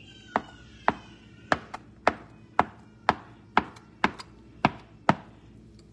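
Kitchen knife chopping hard-boiled egg on a cutting board: about ten sharp, even strikes, roughly two a second.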